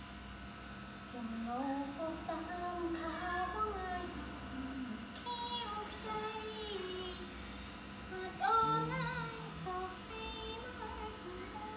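A voice singing a slow, wavering melody without clear words, starting about a second in.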